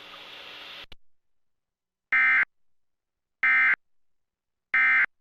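Emergency Alert System end-of-message signal: three identical short bursts of harsh, buzzing digital SAME data tones, about a second and a half apart, marking the end of the broadcast warning. Faint hiss comes just before them.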